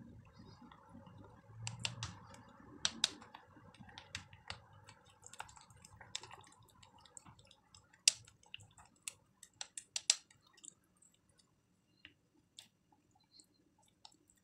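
Spatula stirring a thick egg-and-flour batter in a glass bowl: a soft wet squelching with irregular clicks and taps of the spatula against the glass. The squelching fades after about seven seconds, the sharpest taps come about eight and ten seconds in, and the taps thin out near the end.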